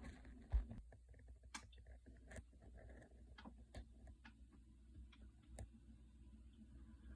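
Near silence: low room hum with faint, scattered small clicks, about one every second.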